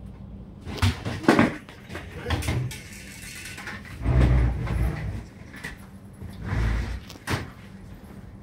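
Irregular knocks and bumps, with heavier low thuds about four seconds in and again nearly seven seconds in, over some voices and a steady low hum.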